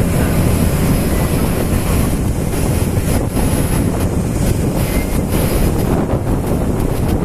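A ferry under way, heard as a steady loud rumble: its engine running, water rushing past the hull and wind buffeting the microphone.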